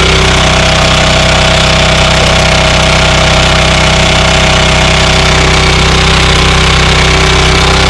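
ETQ portable diesel generator's engine running steadily at a constant speed.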